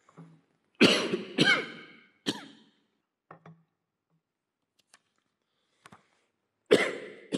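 A man coughing, heard through a speech microphone: three coughs in quick succession about a second in, then one more near the end.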